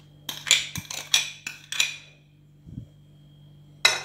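Metal spoon tapping against the rim of a glass mixing bowl to knock off jam: about eight quick clinks in under two seconds, then one louder clink near the end.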